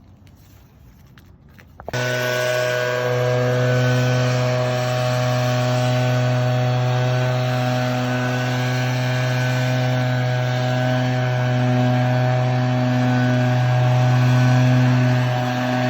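Gas chainsaw starts up about two seconds in and runs at a steady high throttle, cutting crepe myrtle limbs.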